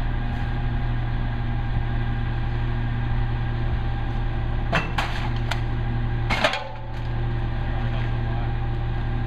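Peterbilt 320 recycling truck's diesel engine idling steadily, with a few sharp clatters of bagged recyclables landing in the rear-loader hopper around the middle and a louder clatter a little later, just before the low engine rumble briefly drops.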